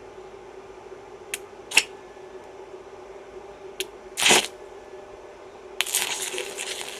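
Stick welder arc crackling for about two seconds as a rod strikes, near the end, over a steady electrical hum. Before it come a few sharp clicks and a short scrape, typical of a rod being tapped and scratched on the metal to start the arc.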